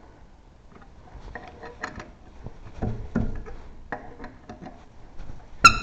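Metal tire-changing tools being handled, giving a run of irregular clicks and knocks, with one sharp ringing metal clank near the end.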